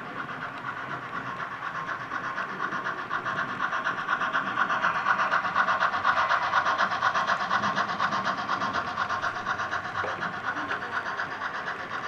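Bachmann model 2-6-0 Mogul steam locomotive and its red passenger cars running on the layout's track with a fast, even rhythm. It grows louder as the train passes close by around the middle and fades slightly afterwards.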